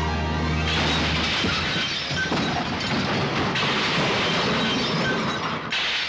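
Cartoon crash sound effects: a long, continuous smashing and shattering commotion over orchestral music, starting about a second in and cutting off abruptly near the end.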